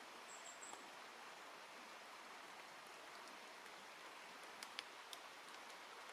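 Faint steady outdoor hiss, with a few sharp taps about four and a half to five seconds in, typical of a three-toed woodpecker pecking and prising at bark as it feeds. There are brief high chirps near the start.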